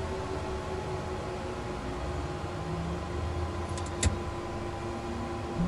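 Steady electrical and fan hum with faint steady whines in a Cessna Citation jet's cockpit, running on ground power before engine start. A single sharp switch click comes about four seconds in. Right at the end, a louder, deeper hum comes in as the engine start begins.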